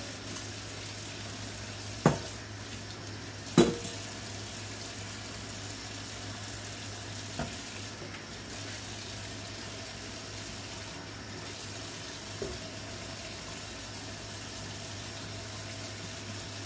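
Kitchen tap running into a stainless steel sink as lettuce leaves are rinsed under it, with a few sharp knocks, the loudest about three and a half seconds in.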